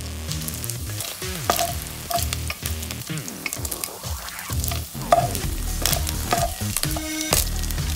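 Diced pork sizzling as it fries and browns in its own rendered fat in an enamelled pot. A spatula stirs it, scraping and knocking against the pot bottom again and again.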